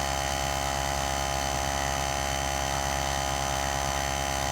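Air compressor motor running with a steady hum while it inflates a motorcycle tire to seat the bead.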